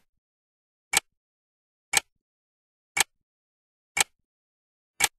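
A clock-tick sound effect: five sharp ticks, one a second, with dead silence between them.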